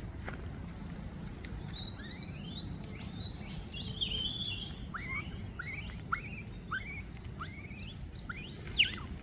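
High-pitched animal chirping calls: a dense overlapping cluster of calls, then a run of short rising chirps repeated about every half second, over a steady low rumble.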